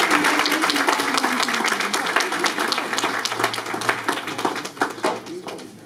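Audience applauding after a speech: dense clapping that thins out to a few scattered claps near the end.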